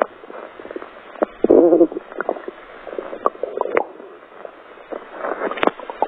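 Human stomach growling close to the microphone: one loud, wavering growl about a second and a half in, then scattered small gurgles and pops.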